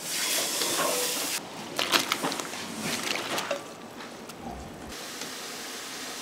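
Large pot of chanko broth boiling hard with a hiss of steam, then sharp metallic clinks and knocks about two to three seconds in as a steel bowl is knocked and scraped against the pot to tip raw meat in, settling back to a steady boiling hiss.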